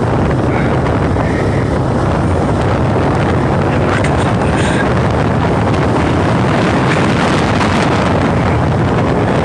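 Wind rushing over the microphone while riding a bike: a steady, loud rumbling noise without a break.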